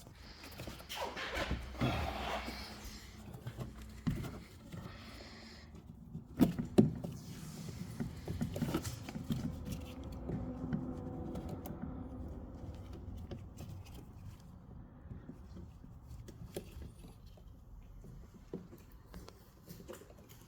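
Handling of a car's plastic door trim panel: rustling and scuffing, then a few sharp plastic clicks and knocks, the loudest about six and a half to seven seconds in, as its electrical connectors are unplugged.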